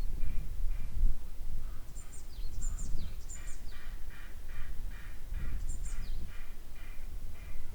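Corvids calling in a run of harsh, evenly repeated calls, about three a second, with a few high, falling chirps from another bird. A low wind rumble runs underneath.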